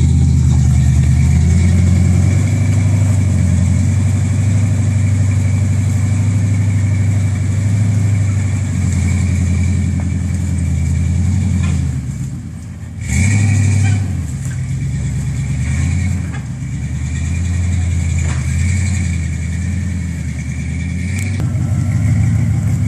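Off-road 4x4's engine running under load, its revs rising and falling. About halfway through it drops off briefly, then revs back up.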